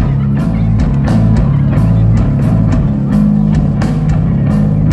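Stoner rock band playing live: electric guitars and bass holding heavy low riffs over a steady drum-kit beat with regular cymbal and snare hits.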